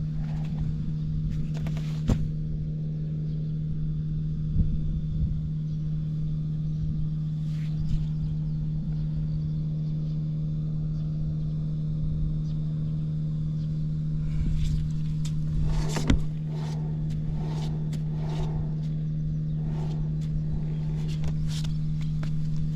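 Honda Cabina 50 scooter's small two-stroke single-cylinder engine running at a steady speed, with a few brief knocks over the top.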